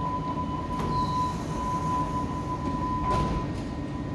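Hamburg U-Bahn train at an underground platform: a steady low rumble with a steady high-pitched whine over it.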